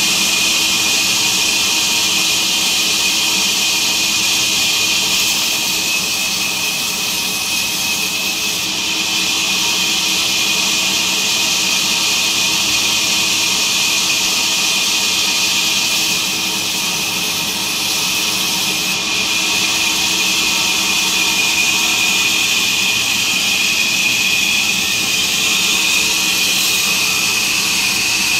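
Vertical band saw running and cutting through a neem log: a steady high whine over loud, even hissing, easing slightly a couple of times as the log is pushed through.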